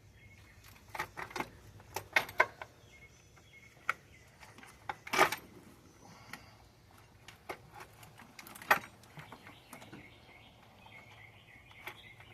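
Metal hand tools being handled and refitted: scattered sharp clicks and clanks of a socket, extension and ratchet, with two louder knocks about five and nine seconds in.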